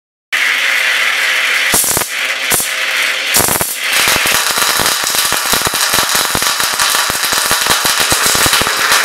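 Portable EDM broken-tap remover eroding a broken tap by spark discharge. It starts abruptly with a hiss and a few sharp cracks, then settles into a fast, dense, irregular crackle of sparks at the electrode.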